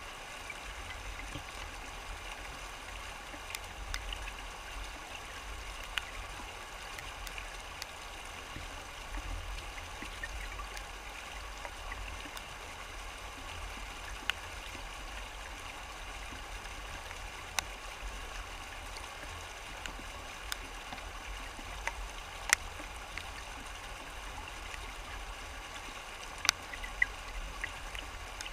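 Shallow river rapids rushing steadily over rocks, an unbroken wash of water noise. A few sharp ticks stand out at scattered moments, the loudest two late on.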